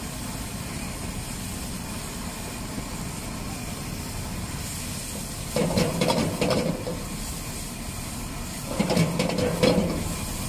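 Vegetables sizzling and hissing steadily in a hot wok over a gas burner. About halfway through and again near the end, a metal ladle scrapes and clanks against the wok in short spells as the food is stir-fried and tossed.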